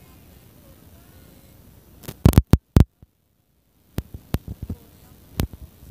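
Faint crowd hubbub, then a cluster of loud, sharp knocks about two seconds in. The sound cuts out completely for about a second, and then several more scattered knocks follow.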